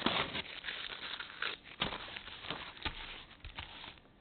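Tape being peeled low and flat off the silicone-sealed seam of a Brunswick Anvil synthetic bowling lane: a continuous crackling rip with sharper snaps, stopping abruptly near the end as the strip comes free.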